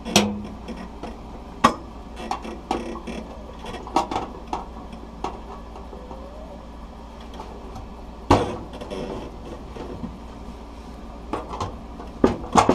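A snap-in three-way switch being worked through its cutout in a range hood's housing: scattered clicks and sharp knocks of the switch and hood panel being handled, the loudest at the start, about a second and a half in, about eight seconds in and near the end.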